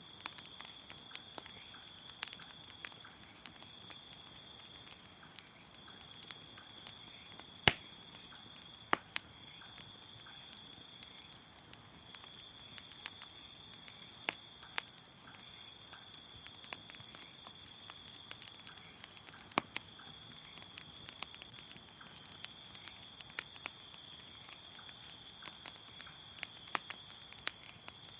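Crickets chirping in a steady high trill, with a wood fire crackling in sharp, irregular pops over it; the loudest pop comes about eight seconds in.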